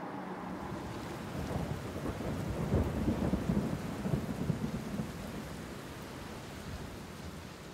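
Rain with a low rumble of thunder that builds about a second and a half in, peaks around three seconds and slowly dies away.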